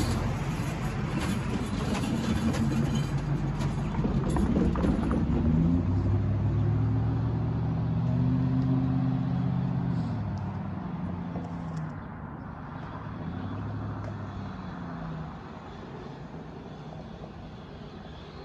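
Road vehicle engines and traffic passing over the crossing, with an engine note that rises and falls in the middle, then fading away over the last few seconds.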